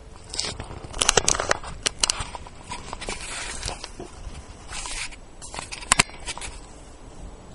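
Handling noise close to the microphone: rustling and scraping with several sharp clicks, a cluster of them about a second in, another at two seconds and two more near six seconds.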